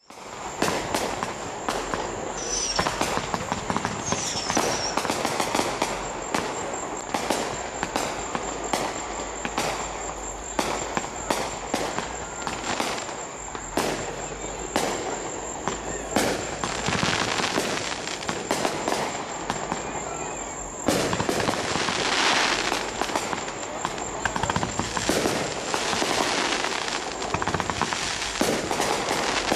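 Fireworks display: aerial shells bursting in a steady run of bangs, about one or two a second, over constant background noise.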